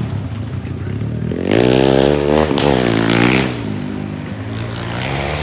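Off-road dirt bike engine revving hard as the bike passes, its pitch climbing and then dropping through the middle, then settling into a lower, steadier drone.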